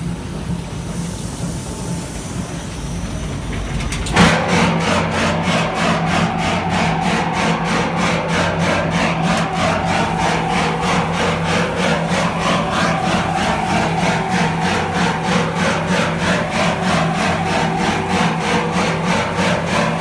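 Industrial sesame washing machine running: a steady motor hum, then from about four seconds in a louder rush of water spraying inside the turning stainless-steel drum, with a fast, even beat of about five a second.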